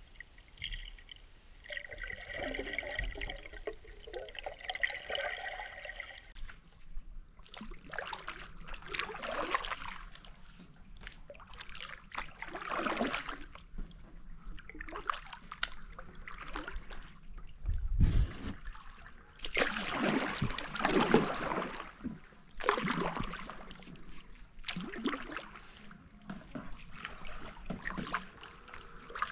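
Muffled underwater water sound for about the first six seconds, then a kayak paddle dipping and pulling through shallow spring water, with splashing and dripping in surges every two to three seconds.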